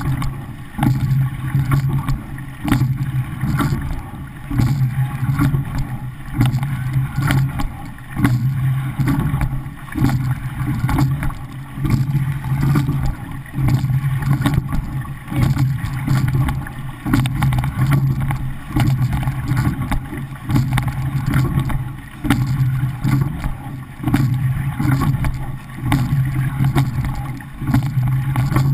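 Water rushing along the hull of a men's pair racing shell, with wind on the hull-mounted microphone. The sound surges and eases with each oar stroke, about once every two seconds, and sharp clicks come through now and then.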